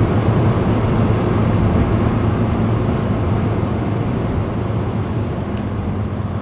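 Steady engine hum and road rumble of a moving van, heard from inside the cabin.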